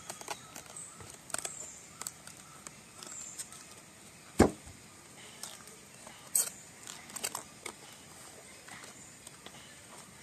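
Knife cutting into a fresh cabbage head and its crisp leaves cracking and snapping off: scattered short crunches and clicks. One sharp knock, the loudest sound, a little over four seconds in, and another strong crack about two seconds later.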